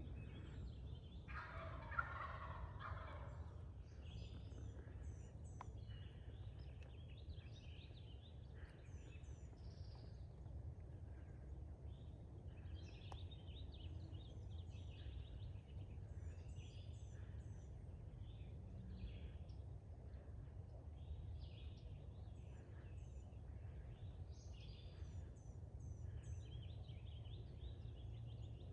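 A distant eastern wild turkey gobbles once, a rattling call about a second in. Songbirds chirp and sing on and off throughout.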